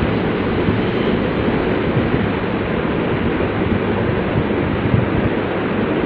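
Steady rushing noise with no distinct events or pitch, heaviest in the low range.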